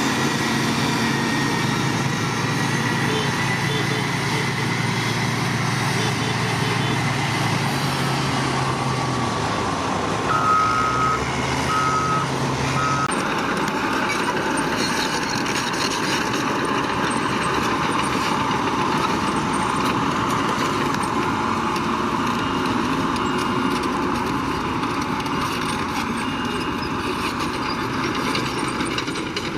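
Heavy construction machinery engine running steadily, its note changing about halfway through, with a reversing alarm beeping three times a little before that.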